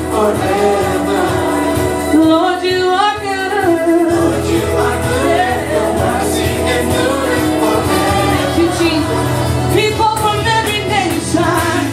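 A woman singing a gospel worship song into a microphone over instrumental accompaniment, holding notes with a strong vibrato about three seconds in and again near the end.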